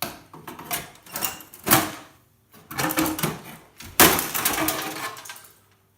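Motherboard being worked loose from an old PC tower's case: clattering and scraping of the board and metal parts, with several sharp knocks, the loudest about four seconds in.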